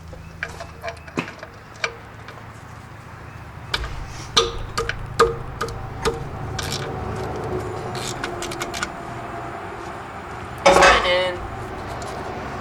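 Metal hand tools and parts clinking and tapping irregularly with short metallic rings, as work goes on at the water pump of a Jeep 2.5L four-cylinder, over a steady low hum.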